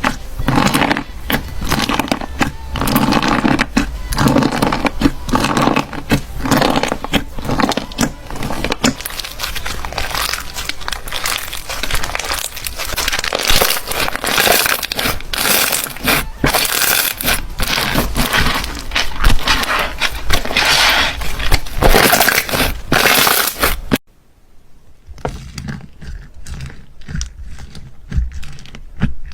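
Slime being squished and pressed by hand, a dense run of crackles and small pops. It drops to a quieter stretch of clicks after an abrupt cut near the end.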